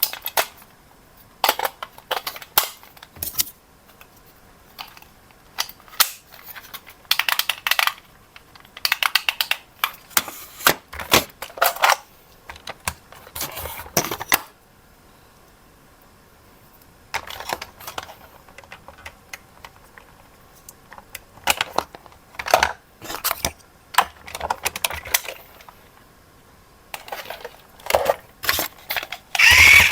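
Hard plastic toy parts and packaging being handled: scattered runs of short clicks, clinks and rattles, with a few brief quiet pauses.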